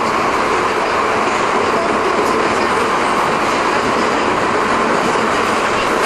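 London Underground train running: a steady, loud noise of wheels on rails that holds even throughout.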